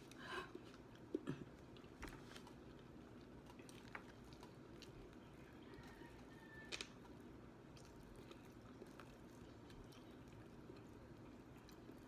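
Faint chewing of fried chicken wings, with a few soft clicks and short rustles over quiet room tone.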